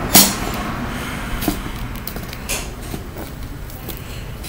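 A plastic toy package being handled and turned over: one loud, sharp sound just after the start, then a few faint rustles and clicks.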